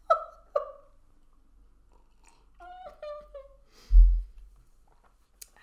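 Small mouth and sipping sounds at a mug, with a few short squeaky sounds in the middle. A loud, dull thump comes about four seconds in, then a single click near the end.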